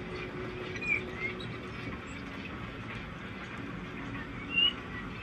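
Birds chirping in short calls, a couple about a second in and the loudest near the end, over a steady low running hum from HO-scale model steam locomotives rolling along the track.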